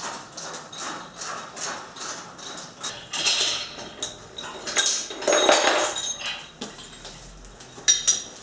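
Steel lifting chains and an engine-hoist load leveler clinking and rattling as they are unhooked from an engine and carried off, a run of uneven metallic clinks and jingles, busiest about three seconds in and again near the end.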